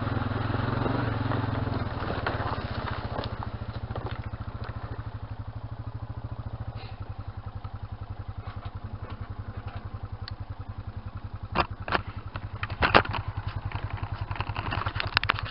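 Honda Rancher ATV's single-cylinder engine easing off from throttle in the first two seconds and then idling with an even pulse. A few sharp knocks and clatter come near the end.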